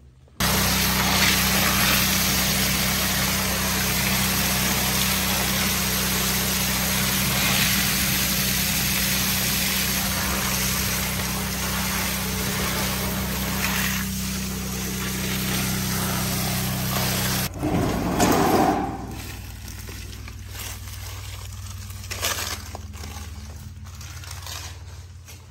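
A motor runs with a steady low hum under loud rushing noise. About 17 seconds in the sound changes with a brief whoosh, and then a quieter rushing noise and a lower hum go on.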